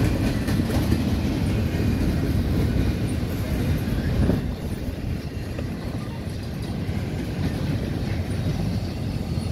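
Double-stack intermodal well cars of a Norfolk Southern freight train rolling past, a steady rumble of steel wheels on the rails that eases a little about halfway through.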